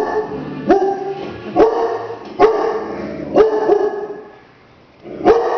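Black Labrador barking repeatedly at a mounted deer head: about six loud barks, each under a second apart, with a pause of about a second before the last one.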